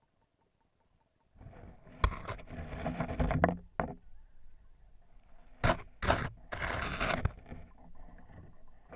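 Muffled knocks and rough scraping on an underwater camera housing as it is jostled against submerged twigs and leaves. A few sharp knocks, about two seconds in, near four seconds and twice around six seconds, stand out above the rubbing noise.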